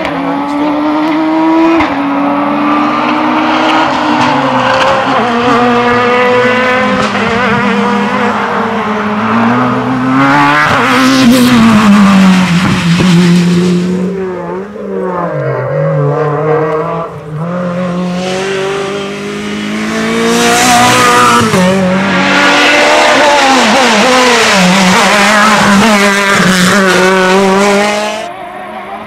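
Racing cars climbing a hill at full throttle, several in turn: the engines rise in pitch and drop back at each upshift, over and over.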